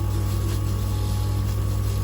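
Manual three-stone lens edging machine running: a steady motor hum with a faint grinding hiss as a spectacle lens is bevelled against the abrasive wheel.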